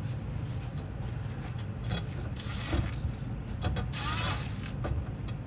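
Gas furnace running with a steady low rumble, with scattered clicks and short rustling noises over it.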